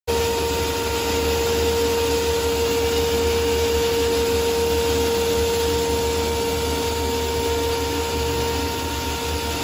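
Belt-driven self-suction grinder mill with cyclone, powered by an electric motor, running steadily: a constant rushing of air with a steady whine over a low hum.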